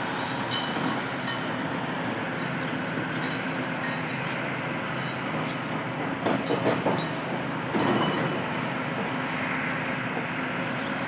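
Steady mechanical rumble of heavy construction equipment at a road works site, with a few louder knocks and clanks about six and eight seconds in.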